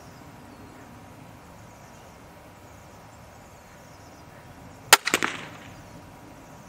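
Wicked Ridge NXT 400 crossbow fired once, about five seconds in: a single sharp crack of the string release, followed by a quick rattle of smaller cracks that dies away within half a second.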